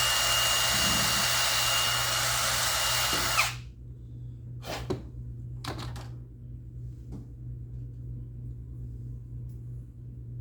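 Power drill running steadily with a constant whine, enlarging the small hole in a metal key, then stopping about three and a half seconds in. A few short clicks and knocks follow.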